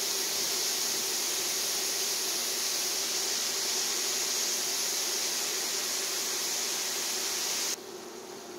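Stir-fry vegetables (broccoli, carrot and celery) sizzling and steaming in a pan on an induction hob: a steady hiss that cuts off abruptly near the end, leaving only a quieter room hiss.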